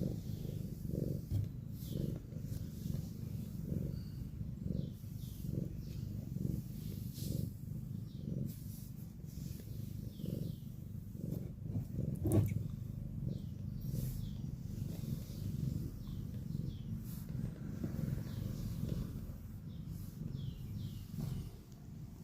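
Domestic cat purring in a low, continuous rumble that rises and falls about once a second, with one brief louder sound about halfway through.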